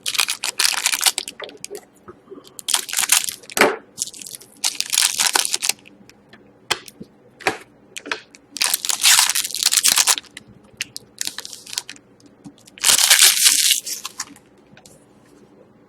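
Trading-card pack wrapping crinkling and tearing as it is opened, with the cards inside being handled: a string of short rustling, crackling bursts separated by brief pauses.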